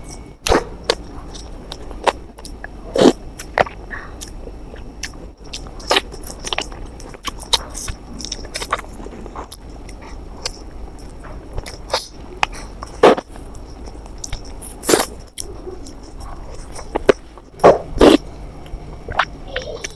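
Close-miked eating: a string of bites and chewing, with sharp mouth clicks and smacks at irregular intervals, a few of them loud.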